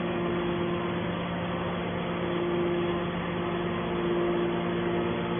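A steady machine hum with a constant low tone, and a higher tone above it that fades in and out.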